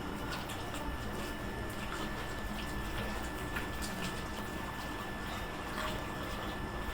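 Marinated chicken pieces sizzling and bubbling in a pot on the stove burner: a steady crackle with scattered small pops.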